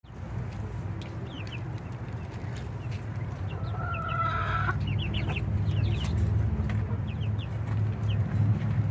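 Chickens clucking, with one longer drawn-out hen call about four seconds in, over a steady low rumble.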